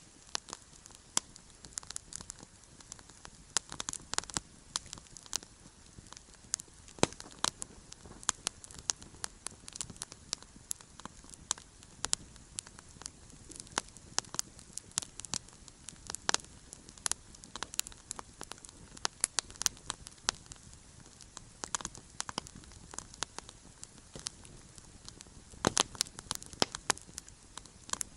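Wood campfire crackling, with irregular sharp pops and snaps several times a second over a faint hiss of burning.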